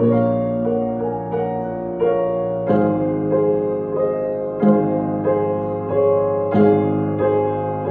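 Slow, gentle piano music: single notes ring on, struck about every half second, with stronger chords roughly every two seconds.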